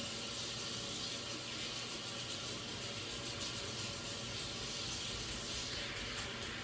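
Water running steadily from a tap, most likely while slime is washed off hands at a sink.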